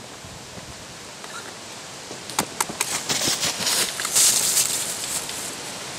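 Rustling and crunching of dry leaves and brush, starting about two seconds in and growing louder, with scattered irregular snaps and clicks.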